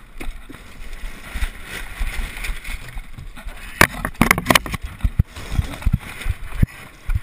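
Crew handling lines on a small sailboat's deck: irregular knocks and rattles of rope, cleats and deck fittings, with a quick burst of sharp clicks about four seconds in, over a low rumble.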